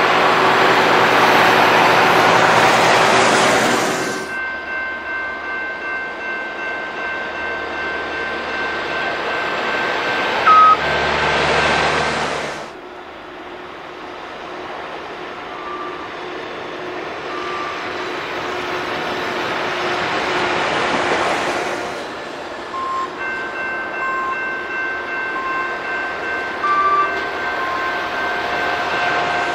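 Railway tie-gang track-maintenance machines rolling past one after another, their engines and steel wheels loud as each goes by close. Between passes a grade-crossing warning bell rings steadily, and there are two brief horn toots, about ten seconds in and again near the end. The sound changes abruptly a few times where separate passes are joined.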